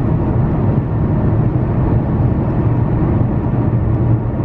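Steady low rumble of a car driving on a snowy highway, heard from inside the cabin: tyre and engine noise.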